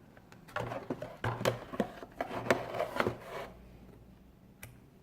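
A Fluke 87V digital multimeter being handled: a run of clicks, knocks and rustling for about three seconds, then one more click near the end.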